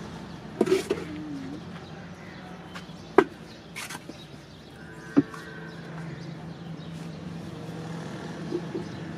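Hand tools working wet cement mortar in a steel roof-tile mould: a few sharp metal clinks and knocks as a trowel and metal mug strike the mould, one with a brief ring, over a steady low hum.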